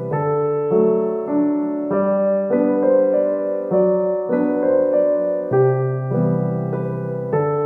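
Background piano music, with notes and chords changing about once a second.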